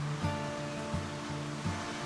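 Background music: a run of short plucked notes over a steady hiss.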